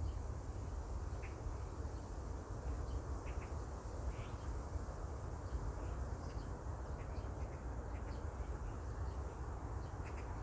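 Birds giving short, scattered chirps over a steady low rumble of wind on the microphone.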